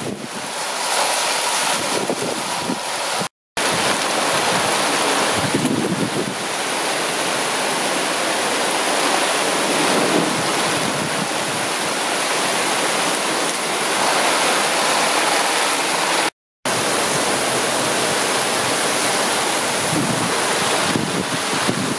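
Heavy rain pouring down in a storm with gusting wind, a loud steady hiss. It drops out to silence twice, for a moment each time.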